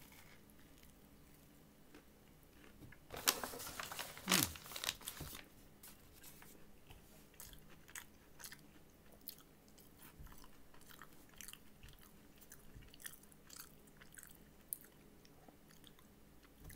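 A person biting and chewing a Popeyes fried chicken sandwich with crispy breading, heard close up. The crunching is loudest about three to five seconds in, then goes on as softer, steady chewing clicks and crunches.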